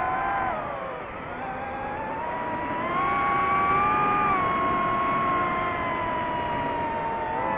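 Drone's electric motors and propellers whining, the pitch dropping about a second in, climbing again around three to four seconds, then easing slowly downward.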